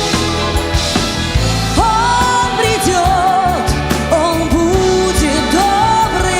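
Estrada-symphony orchestra playing a passage of a ballad: a lead melody in long held notes with vibrato and sliding changes of pitch, over a steady bass and beat.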